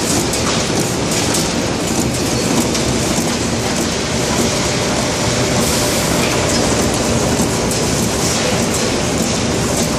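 Bakery packaging line with an Ilapak flow wrapper running, making a steady, loud mechanical clatter of many quick clicks and rattles from the conveyor and wrapping mechanism.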